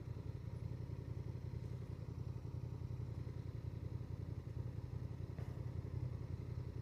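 Honda Transalp 750's parallel-twin engine running steadily at an even, low pulse, with no revving.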